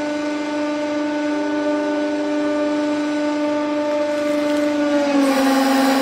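Hydraulic press running with a steady hum while its ram crushes foam candies. About five seconds in, the hum dips slightly in pitch and a loud rush of noise comes in as the candy mass gives way and is squeezed out.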